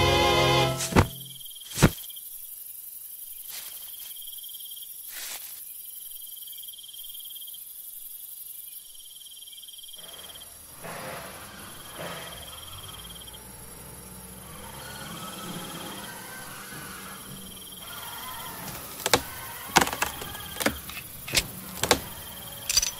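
Soundtrack music ends in the first second, followed by two sharp clicks. Then comes a quiet night-forest ambience with a steady high cricket chirp. From a few seconds before the end there is a run of sharp taps, about two a second.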